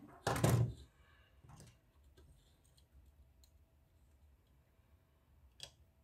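Hands handling the plastic receiver case on a wooden tabletop: a short thump and rub about half a second in, then a faint click and a sharper click near the end.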